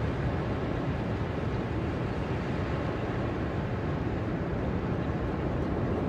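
Ocean surf on a sandy beach: a steady, low rushing wash with no separate wave crashes standing out.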